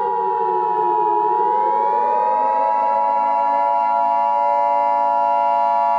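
Civil defense siren whose pitch sags, then winds back up about a second in and holds steady. A continuous steady electronic alert tone runs over it.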